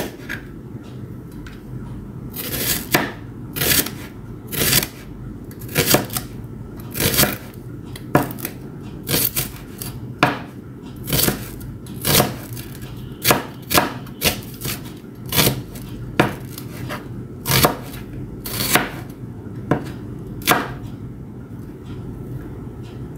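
Chef's knife slicing a red onion into wedges on a cutting board: about twenty sharp knocks of the blade through the onion onto the board, roughly one a second.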